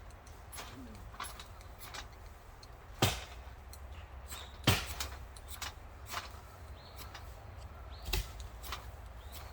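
Ferrocerium fire-starter rod being struck to throw sparks for lighting a campfire: a string of short, sharp scrapes, three loud ones among several fainter ones, with the fire not yet caught.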